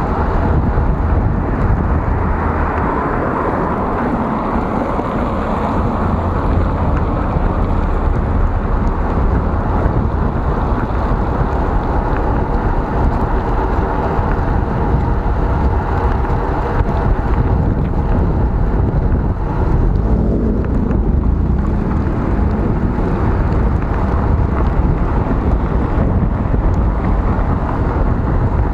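Steady wind rumble on the microphone of a handlebar camera on a moving bicycle, over the hiss of tyres on a wet road and the running of nearby traffic.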